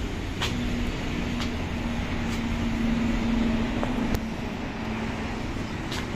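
RC Cessna 182 model plane's motor and propeller droning at a steady pitch as the plane flies past, swelling to its loudest a little past the middle and then fading, over a steady low rumble. A few light clicks.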